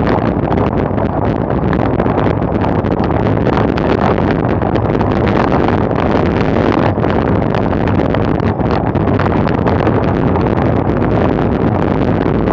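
Steady, heavy wind rushing over a bike-mounted Garmin VIRB action camera's microphone at sprint speed, close to 40 mph.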